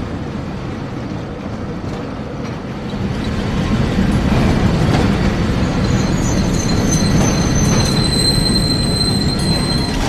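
Street tram running at the stop with a steady low rumble that grows louder about three seconds in, and a thin, high steel-wheel squeal over the last few seconds.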